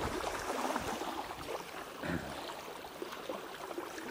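River water lapping along the bank, a steady splashing noise, with two low thumps: one at the start and one about two seconds in.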